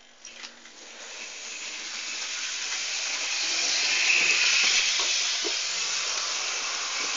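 A couple of sharp clicks, then a Hornby OO-gauge 0-4-0 model locomotive's small electric motor whirring and its wheels running on the track, building up over the first few seconds as the power comes on and then running steadily at speed.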